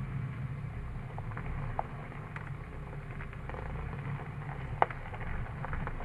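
Jeep engine running low, heard from inside the cabin, with scattered small crackles and clicks and one sharper click about five seconds in.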